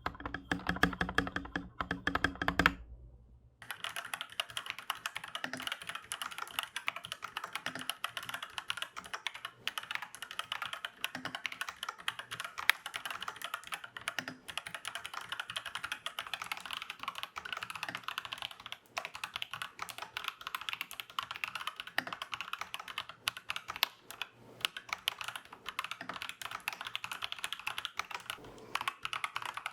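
Rapid, continuous typing on an Aflion AF82 75% hot-swap mechanical keyboard. The first few seconds sound fuller and deeper; after a brief pause about three seconds in, the typing carries on thinner and brighter.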